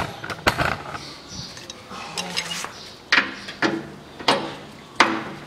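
Sharp metal clinks and clanks from a socket and long wrench bar working the bolts of a car's underbody skid plate, about six separate knocks at uneven intervals.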